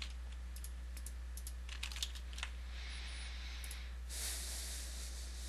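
A few scattered, faint computer keyboard key presses and mouse clicks over a steady low hum. A soft hiss rises about three seconds in and grows fuller near the end.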